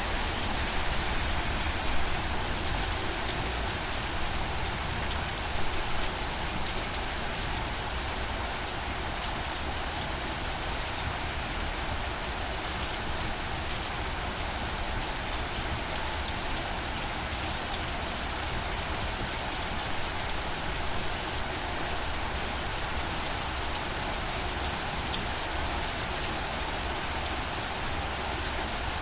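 Steady rain falling, a dense even hiss of raindrops with a low rumble underneath, a little louder for a moment near the start.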